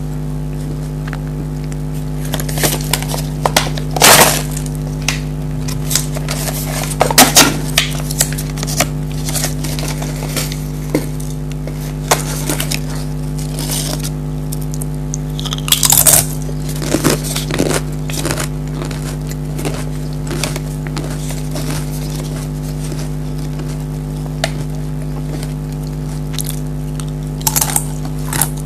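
Pringles potato crisps being bitten and crunched, with sharp crunches scattered at irregular intervals between quieter chewing. A steady hum runs underneath throughout.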